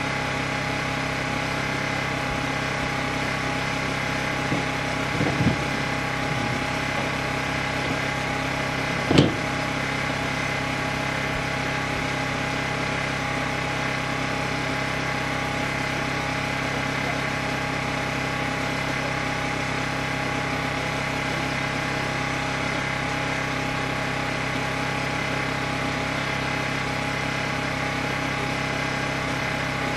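Portable generator running with a steady engine drone. A sharp knock sounds about nine seconds in, after a few fainter short sounds.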